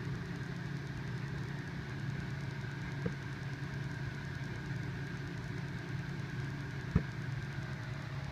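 Steady low hum of room noise, with two light clicks about three and seven seconds in.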